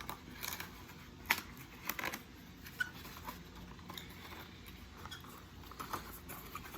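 Scattered light clicks, taps and rustles of a tripod and its packaging being handled during unboxing, the sharpest click about a second in.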